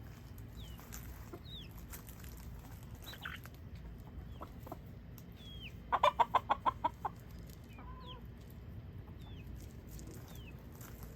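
Chickens clucking: a hen lets out a quick run of about eight loud clucks about six seconds in. Short, high, falling peeps repeat about once a second throughout.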